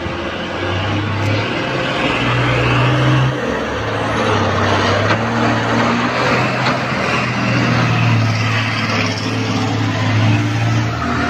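Heavy diesel machinery running loud and close, its engines revving up and down while nickel ore is loaded into a dump truck.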